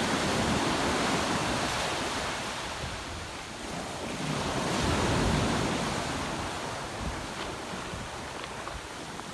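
Ocean waves breaking and washing on the shore, the surf swelling in loudness near the start and again about five seconds in.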